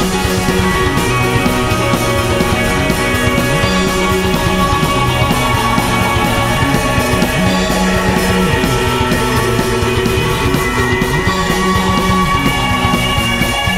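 Rock band playing: electric guitars over drums, steady and full throughout.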